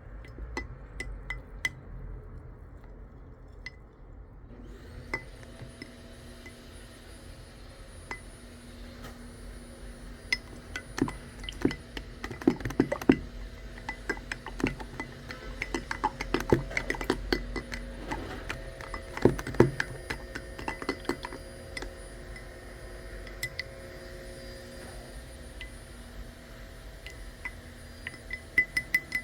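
Dishes and cutlery clinking repeatedly, with steady background music coming in about five seconds in.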